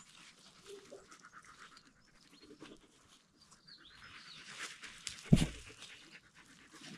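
Dogs panting close by, with one sharp, deep thump about five seconds in.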